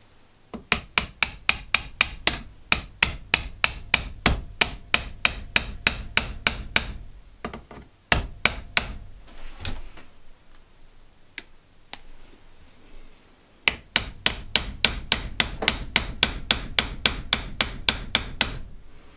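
Quick, even hammer blows, about four a second, on the end of a wooden file handle, driving it up onto the file's tang. There are two long runs of blows, with a few single strikes in the pause between them.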